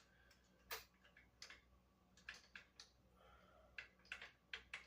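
Faint, scattered clicks and taps, about ten over a few seconds, from the parts of an electric scooter being handled while its handlebar is fitted into the neck.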